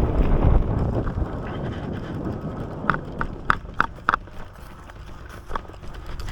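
Low wind rumble on the microphone, then a quick run of sharp clicks and knocks, about three a second, lasting a little over a second, with one more knock near the end.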